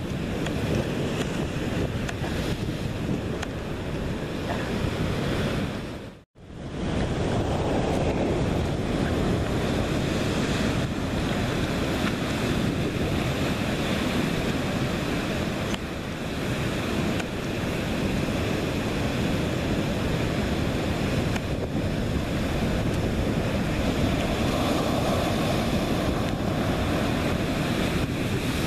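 Heavy surf breaking over a rocky reef and pouring off it in white cascades: a steady, dense rush of waves, with wind buffeting the microphone. The sound cuts out for a moment about six seconds in, then the rush carries on.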